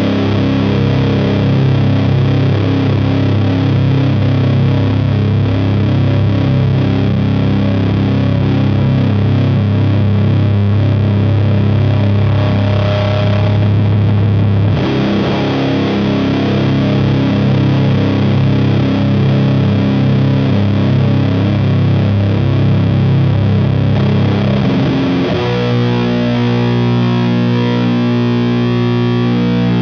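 Fender Jazzmaster with Gibson P94 pickups, tuned to C standard, played through a Burden high-gain fuzz/distortion pedal into an Ampeg V4B head and Orange cabinet, holding heavy sustained drone chords. The chord changes about halfway through and again near the end.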